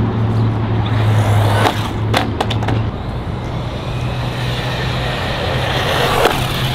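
Small brushed ARRMA Typhon Grom RC buggy driving over asphalt: a steady rush of tyre and motor noise with a few sharp knocks as it hits the ground off a jump, over a steady low hum.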